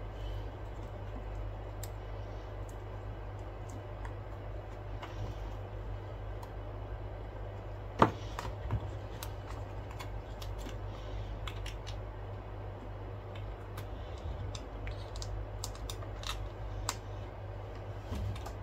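Scattered small clicks and taps of hands handling an opened iPad and a loose digitizer glass panel, with one sharp click about eight seconds in, over a steady low hum.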